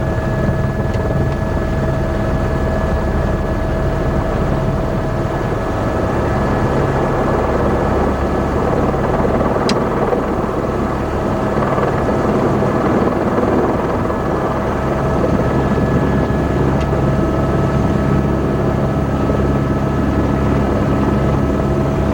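Helicopter running steadily: a constant rumbling drone with a few steady whining tones held over it.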